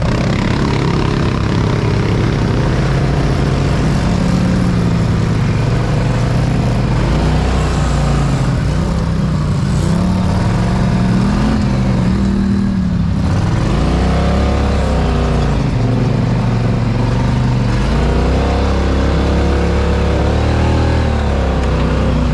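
Off-road vehicle engine running hard under load, its pitch rising and falling again and again as the throttle is worked, over a steady rushing noise.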